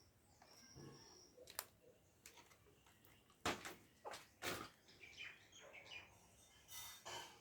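Near silence with faint clicks and rustles of wiring connectors and harness being handled, the loudest a few seconds in, and a few faint short high chirps.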